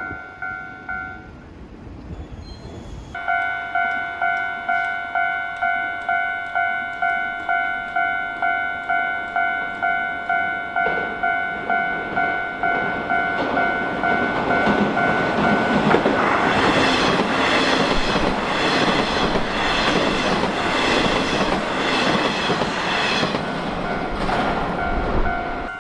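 Japanese level-crossing warning bell ringing in quick electronic pulses, about two a second, breaking off briefly near the start. Partway through, a Nishitetsu electric train rushes past over the crossing with rhythmic wheel clacks that drown out the bell, then fades as the bell comes through again.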